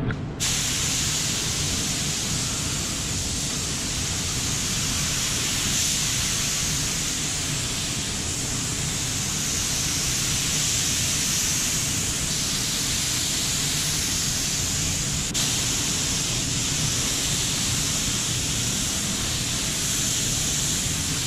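Gravity-feed paint spray gun spraying paint, a steady hiss of compressed air.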